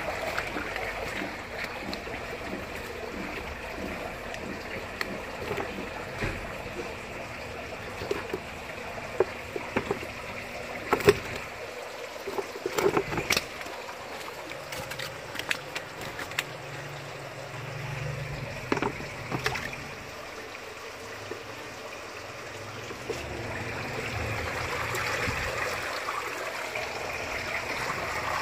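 Water running and trickling into an aquaponics fish tank, with a scatter of sharp knocks and taps in the middle. The water is louder near the start and end.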